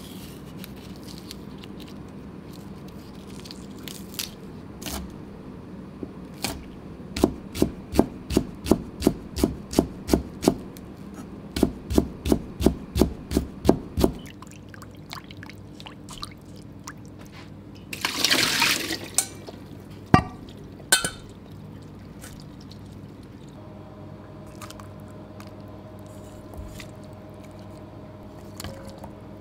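Kitchen knife slicing the white of a Japanese leek into fine shreds on a plastic cutting board: two runs of quick, even chops about three a second, with a short break between. Near the end a brief pour of liquid is followed by two single knocks.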